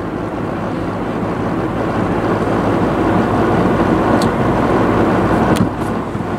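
Steady road noise of a car heard from inside: tyres on a wet road with the engine running underneath. A couple of faint clicks come near the end, and the noise eases slightly in the last second.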